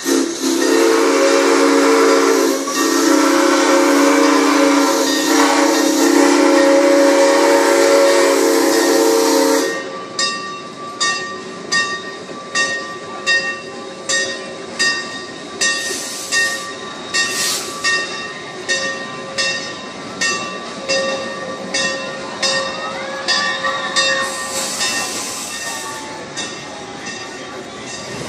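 A steam locomotive's whistle blows one long blast of several notes at once for about nine seconds. Then a bell rings steadily, about once a second, each stroke ringing on and fading.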